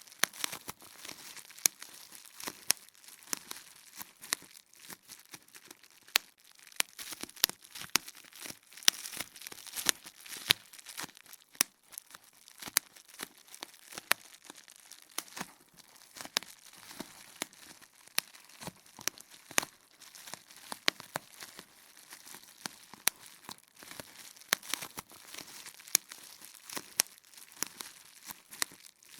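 Bubble wrap being popped: sharp, irregular pops, roughly one or two a second, over a steady crinkling of the plastic sheet.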